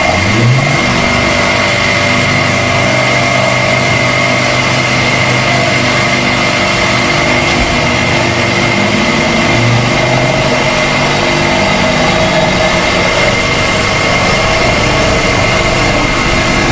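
A two-insert face mill on a milling machine takes a light skim cut across a 1018 steel plate. It makes a steady cutting noise with a constant high whine.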